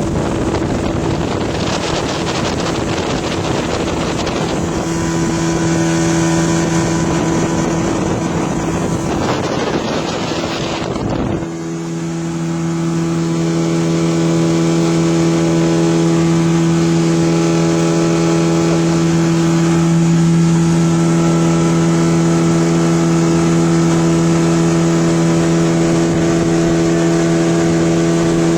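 Motorboat engine running steadily under way, with rushing wind and water noise. About eleven seconds in the rushing noise thins out and the engine's steady hum carries on more plainly.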